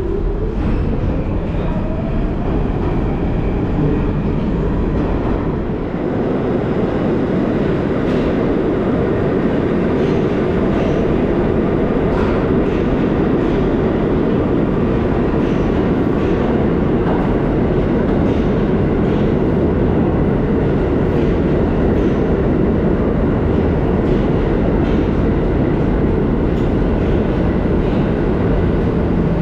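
New York City subway train moving slowly along the far track of an underground station: a steady rumble of wheels and running gear, with a motor whine rising in pitch at the start and scattered short clicks throughout.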